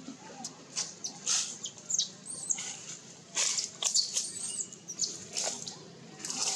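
Baby macaque monkey squealing and screeching: many short, high-pitched calls in quick, irregular succession, some rising and falling in pitch.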